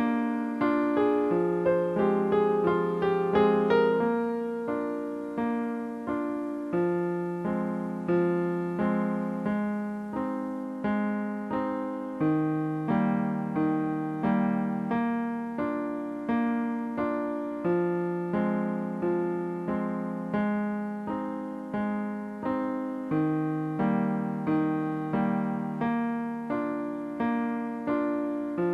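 Piano music: notes and chords struck at a slow, even pace, each left to ring and fade before the next.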